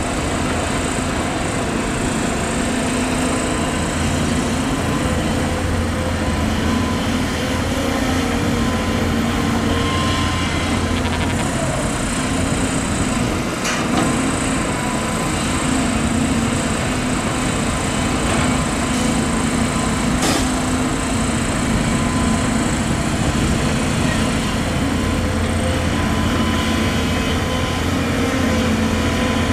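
Volvo EC250DL excavator's diesel engine running steadily under load as the hydraulics work the boom and bucket through the soil, with two sharp knocks, about 13 and 20 seconds in.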